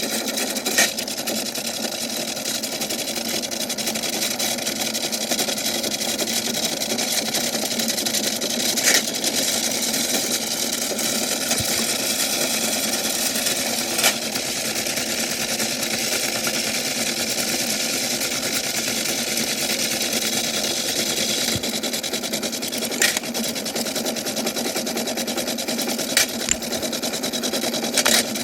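Toy washing machine running with a steady motor whir while dominoes tumble in its drum, with an occasional sharp clack as they knock about.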